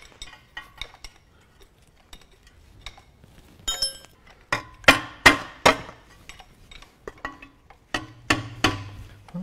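Hand tools and metal engine parts clinking and clanking on an old Ferguson tractor diesel engine being stripped down, around its cooling fan. Light clicks at first, then a cluster of sharp ringing metallic knocks about five seconds in and another near the end.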